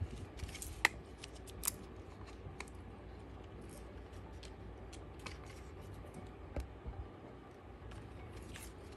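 Scattered small clicks and light plastic handling noises from a hobby servo and a handheld servo programming box being handled and adjusted, with the sharpest clicks in the first two seconds.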